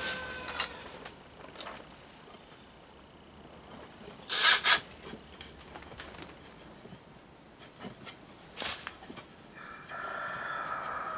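Work on a wooden frame: two short scraping noises about four and a half and eight and a half seconds in, then a Ryobi cordless drill running steadily for the last second or so, driving a screw into the frame.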